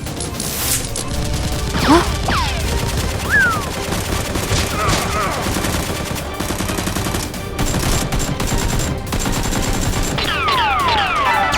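Rapid, continuous gunfire sound effects, with falling whistling sweeps about two seconds in and again near the end.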